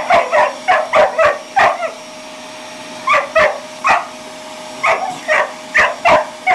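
Border collie barking in quick, sharp bursts at a vacuum cleaner: a rapid string of about six barks, a pause of about a second, then another run of barks.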